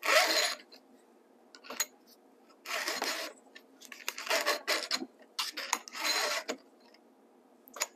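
Stihl 2-in-1 chainsaw sharpener, its round and flat files pushed across a chain cutter and depth gauge: four rasping file strokes a second or two apart, with light clicks between them. The owner suspects the round file is fitted backwards in the holder, because the filing doesn't sound right.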